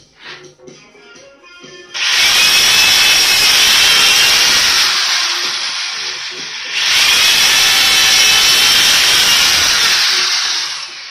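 Corded Bosch power drill boring through a stack of wood furring strips. It starts about two seconds in and runs in two long spells of about four seconds each, with a brief dip between them, then stops just before the end.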